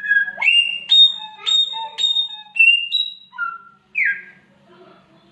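Samyong songbird singing a run of loud, clear whistled notes, each starting abruptly, some sliding sharply up or down in pitch, ending with a falling note about four seconds in.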